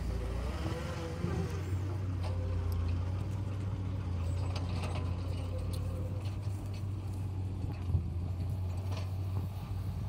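Diesel engine of a loaded dump truck running steadily as the truck manoeuvres. A wavering whine sits over the engine hum in the first couple of seconds, and there is a single sharp knock about eight seconds in.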